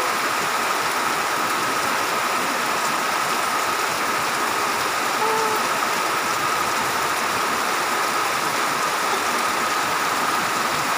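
Heavy typhoon downpour falling steadily, with rainwater streaming off a thatched roof edge and splashing onto a flooded path.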